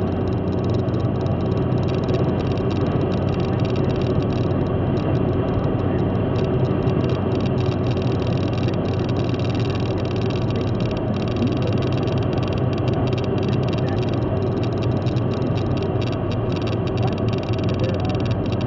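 Steady road and engine noise heard inside a car cruising at motorway speed, a low drone with tyre rumble that holds even throughout.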